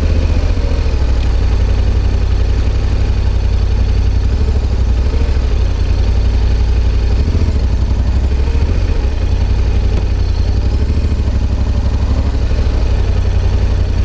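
Yamaha XSR700's CP2 270-degree parallel-twin engine through an SP Tadao Power Box Full RS full exhaust, running at low revs while the bike rolls slowly; a steady, low exhaust note with only small changes in engine speed.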